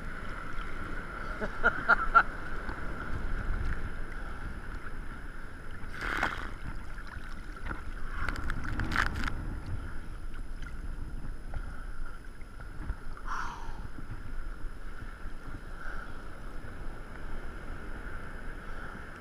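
Seawater sloshing and slapping against a surfboard and its water-level camera housing, with wind buffeting the microphone. A few louder splashes come about two, six and nine seconds in.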